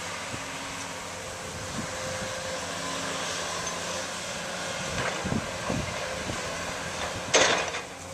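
Diesel earthmoving machinery, a Volvo tracked excavator and a second machine, running steadily with a low, even engine hum. A few dull knocks come about five seconds in, and a short, loud burst of noise comes near the end.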